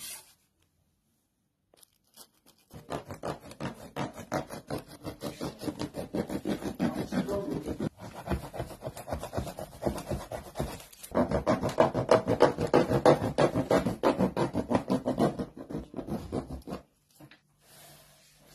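Rapid, even rasping strokes of a blade cutting through the wall of a plastic jerrycan, in two long runs with a brief pause about eleven seconds in.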